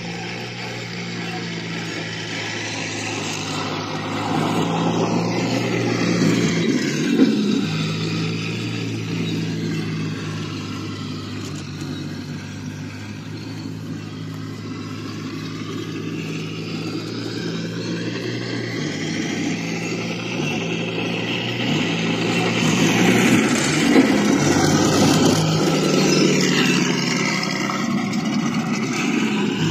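3D-printed 1/6-scale RC M3 half-track driving: its drive motors and gearbox whine steadily, the pitch rising and falling as the throttle changes.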